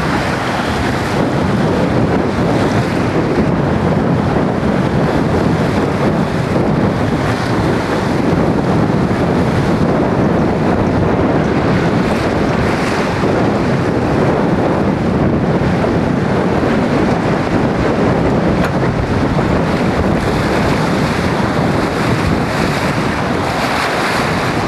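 Wind buffeting the microphone over water rushing past the hull of a small sailing sportsboat going fast through choppy water: a loud, steady rush of noise.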